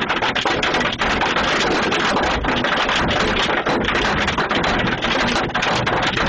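Hailstorm: hail and heavy rain pounding down, a dense, continuous clatter of many separate hits.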